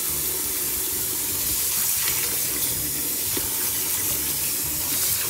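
Kitchen tap running steadily into a sink as kumquats are washed by hand in the water.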